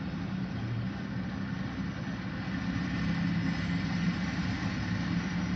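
Steady low engine rumble with a steady hum, heard from inside a car, growing slightly louder after the middle.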